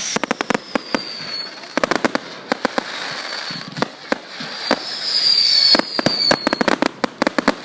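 Fireworks going off: rapid clusters of sharp bangs and crackles, with two falling whistles from whistling fireworks, one at the start and another midway.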